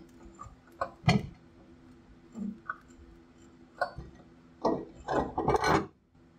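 Scattered knocks and clinks of a double-convoluted rubber air spring and its steel bracket being squeezed and pushed up into place between a pickup's frame and rear axle, with a quick run of knocks and rubbing about five seconds in. A steady low hum runs underneath.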